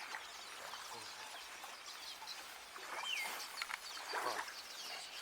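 Outdoor ambience with scattered bird calls: short high chirps throughout and a clear falling whistled note about three seconds in.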